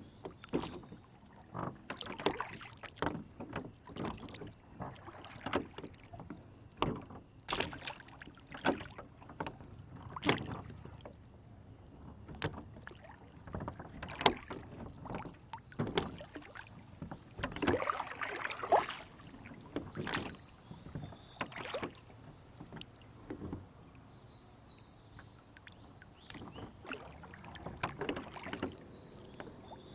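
Lake water splashing and lapping against a small rowboat's hull, in irregular bursts with sharper knocks, busiest a little past halfway and calmer toward the end.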